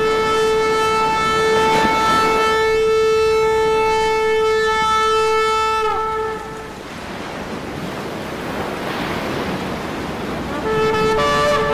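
A long, steady horn-like tone that bends down slightly as it stops about six and a half seconds in, followed by a rushing hiss. Near the end the tone comes back, with a second, higher note sounding over it.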